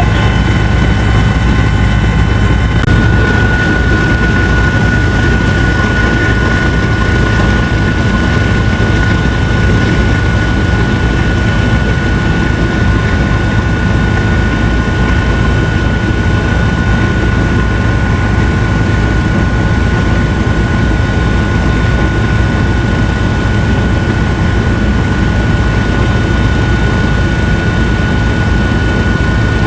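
Helicopter in flight, heard from inside the cabin: steady engine and rotor noise with a constant high whine that grows stronger about three seconds in.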